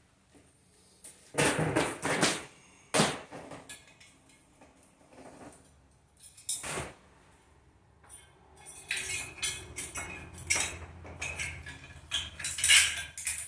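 Metal clinks and knocks from a metal electrical switch box and armored MC cable being handled and fitted: a few separate knocks in the first seven seconds, then a quicker run of rattling clinks near the end.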